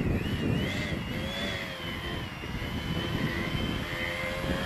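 Home-built tricopter's electric motors and propellers whining, their pitch wavering up and down as the throttle is worked while it lifts off the grass, over a low wind rumble on the microphone.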